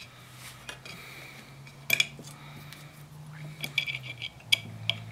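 Metal Allen wrench clicking and clinking in a rusted set screw on the band saw's steel motor pulley as the seized screw is forced round. A few sharp metallic clicks, the loudest about two seconds in and a quick cluster near the end.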